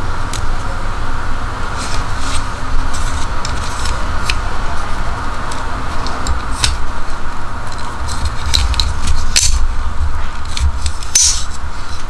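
Steel Nextool multitool being handled, its fold-out tools clicking and clinking as they are swung open and folded back: a scatter of sharp metal clicks, over a steady low hum.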